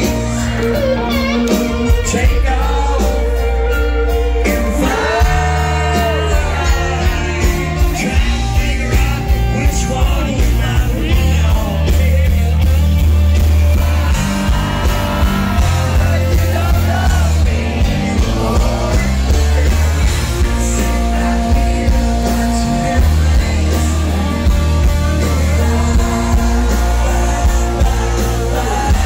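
A live country song played by a full band through an amplified concert sound system, with a male lead singer singing over a heavy, steady bass.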